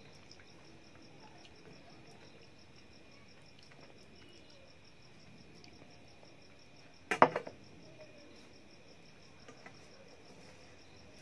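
Steady background chirring of crickets with an even pulse. About seven seconds in, a brief clatter of a small bowl knocking against dishware as the egg curry is tipped out and the bowl put down.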